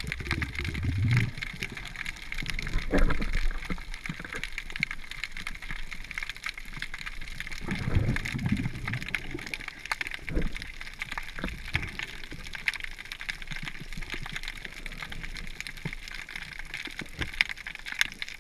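Muffled underwater sound picked up by a camera held below the surface: water sloshing and gurgling around a swimming snorkeler, with a few low thumps and a fine, steady crackle.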